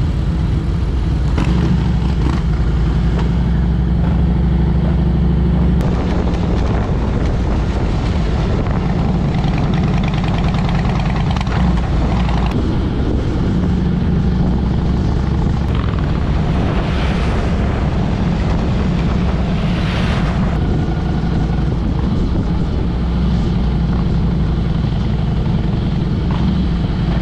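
Motorcycle engine running steadily under way at road speed, a continuous low drone with wind noise rushing over it.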